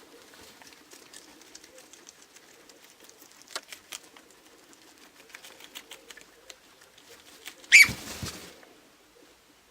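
Guinea pigs munching lettuce: many small crisp crunching clicks over a faint low murmur. About eight seconds in comes one sudden, loud, sharp sound with a high falling pitch.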